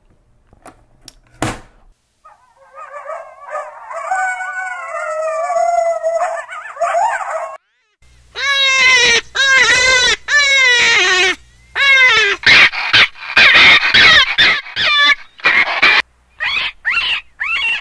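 Recorded animal calls played back from a Johnny Stewart cassette game caller. A few clicks come first, then one drawn-out pitched call of about five seconds. From about eight seconds in there is a run of loud, high-pitched jackrabbit distress cries, each falling in pitch.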